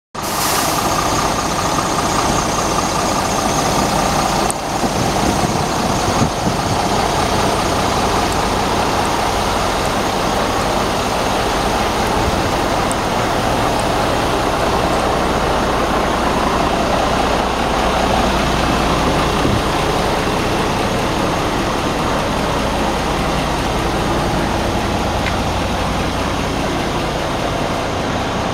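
Scania G400 tipper's six-cylinder diesel engine idling steadily.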